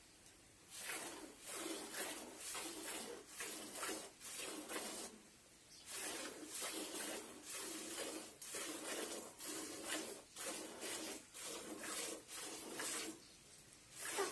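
Buffalo being milked by hand: streams of milk squirting into a pail in a steady rhythm, about two squirts a second, with two short pauses.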